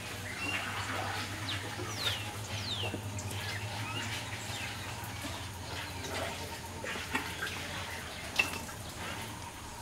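Outdoor ambience: a steady hiss and low hum, with scattered short bird chirps and a few quick falling whistles in the first few seconds.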